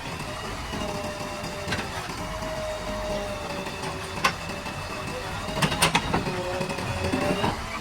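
Backhoe loader's diesel engine running with a steady whine that sags and recovers in pitch, and several sharp metallic clanks, a cluster of them a little after the middle.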